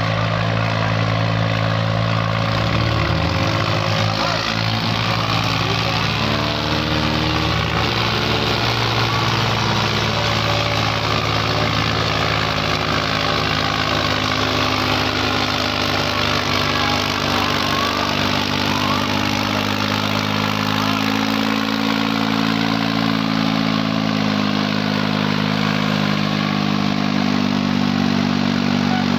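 Farm tractor's diesel engine working at full power as it drags a tillage implement through dry soil. It runs steadily and loud, its pitch dipping a few seconds in and rising again later as the load changes.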